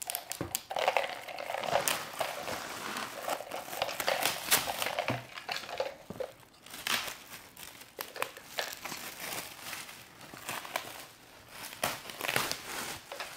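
Shiny metallic gift wrap crinkling and rustling as a present is unwrapped by hand, in irregular bursts with sharp crackles.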